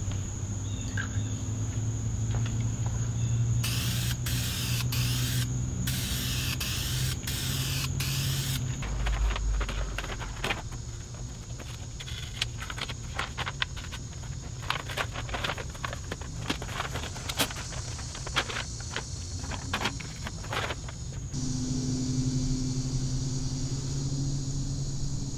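Aerosol spray can of black primer spraying in about six short bursts, then a long run of quick clicks and rattles. A steady low hum and crickets trilling go on underneath.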